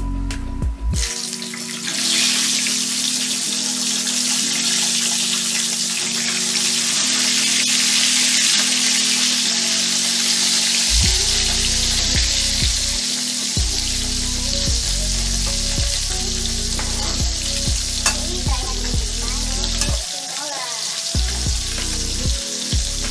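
Whole bilong-bilong fish frying in hot oil in a wok: the oil starts sizzling loudly about two seconds in as the fish goes in, and keeps sizzling steadily.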